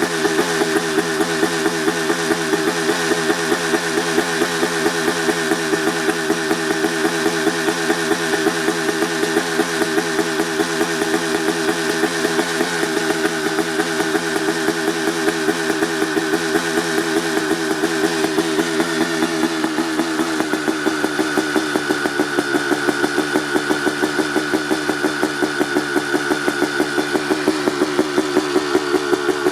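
1989 Honda CR250R's 250cc single-cylinder two-stroke engine, fitted with an FMF Gnarly expansion chamber, idling while warming up after a cold start, with a steady, regular popping beat. About two-thirds of the way through, the idle settles a little lower.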